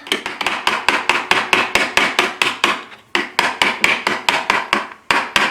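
Toy hammer rapidly hammering a toy nail, about five or six quick sharp strikes a second, with a brief pause about three seconds in.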